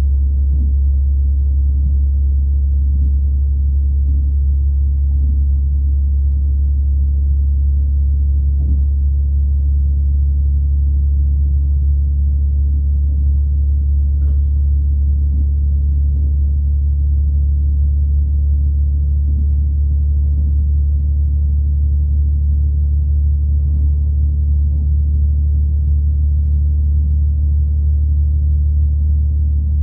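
Irish Rail diesel train running at a steady pace, a loud, even low rumble with a few faint ticks.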